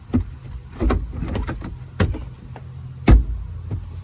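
Knocks and thumps of a car's rear seat being lifted and set into place, plastic and metal bumping against the car body; four knocks, the loudest about three seconds in.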